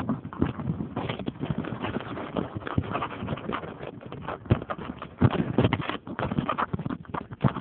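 Handling noise on a phone's microphone: irregular knocks, taps and rustling as the phone is moved about and covered.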